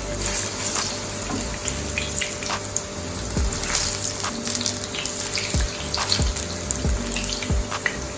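Food frying in hot oil: a steady sizzle scattered with small crackles and pops.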